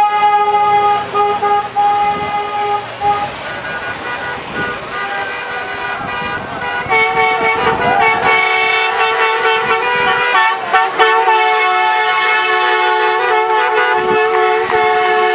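Car horns held as cars drive past. One steady horn note runs for about the first three seconds; a longer horn blast of several tones starts about seven seconds in and lasts almost to the end, with road and engine noise between the two.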